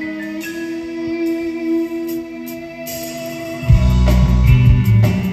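Progressive rock band playing live: a quieter passage of held violin and keyboard notes, then about three and a half seconds in the full band comes in loudly with heavy bass and drums.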